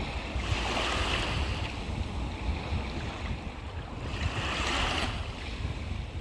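Sea waves washing onto the shore, swelling twice a few seconds apart, with wind rumbling on the microphone.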